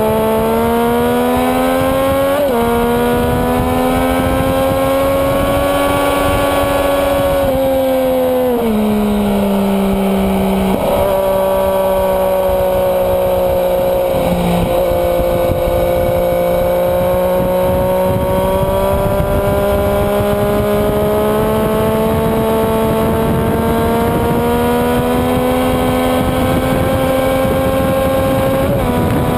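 Sport motorcycle engine at track pace, heard onboard with wind noise: the revs climb and drop sharply with an upshift about two and a half seconds in, fall as the bike slows around eight seconds, then climb slowly through a long corner before another shift near the end.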